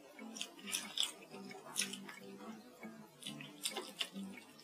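Close-up wet chewing and mouth smacks from eating stewed starch noodles: a run of small irregular clicks. Near the end, chopsticks pick through the ribs and noodles in the metal pan.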